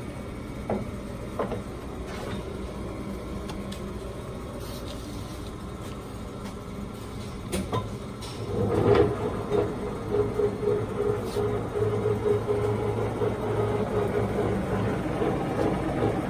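Large Poreba TPK80 engine lathe: a few clunks as the headstock gear-change levers are shifted, then about eight seconds in the lathe's gear drive runs up louder with a steady gear whine over a low hum.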